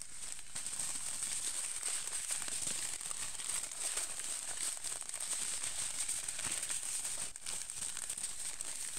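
Plastic packaging bags crinkling and rustling as they are handled: a dense, continuous run of small crackles.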